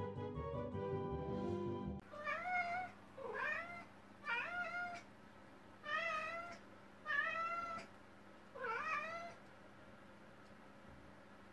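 Background music for the first two seconds, then a blue bicolor ragdoll cat meowing six times in about seven seconds: hunger meows, asking to be fed.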